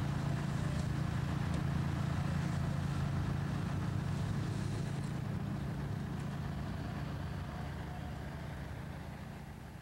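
Truck engine running with a steady low drone, fading out over the last few seconds.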